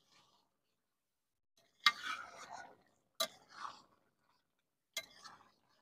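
Metal spatula clinking against a wok three times, each clink followed by a short scraping, stirring noise through the simmering fish curry.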